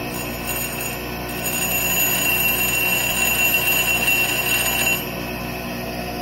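Bench grinder motor running steadily while a carbide lathe-tool insert is ground against its fine 180-grit CBN wheel to sharpen its tip. The grinding contact adds a louder high-pitched whine from about a second and a half in until about five seconds in, then the motor runs on alone.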